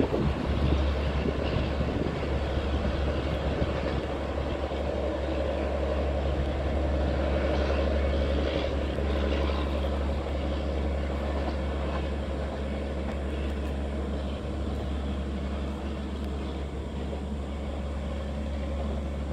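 Humsafar Express train rumbling away down the line: a continuous low drone with rail noise that fades slightly in the second half.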